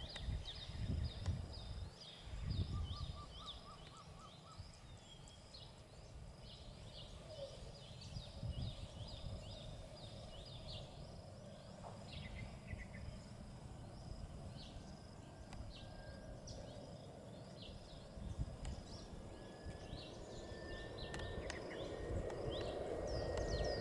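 Small birds chirping over and over above a low outdoor rumble. In the last few seconds the engines of an Airbus A320-family airliner on landing approach grow louder, a rising rumble with a steady whine.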